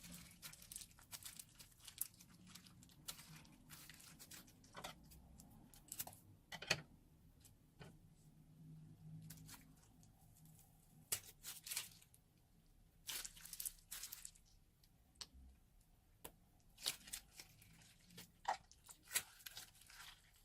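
Slime squeezed out of a piping bag and pressed, making faint, irregular crackling and popping.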